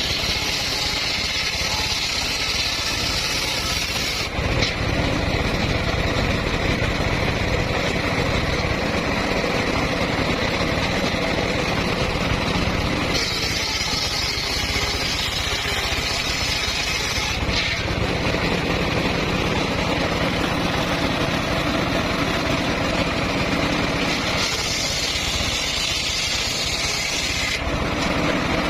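Circular sawmill running with a steady low machine drone. Three times, about ten seconds apart, a higher-pitched whine comes in for three to four seconds as the blade cuts through wood.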